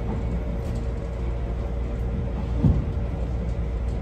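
Low, steady rumble of a passenger train carriage rolling slowly out of a station, under a steady hum. A single thump sounds about two and a half seconds in.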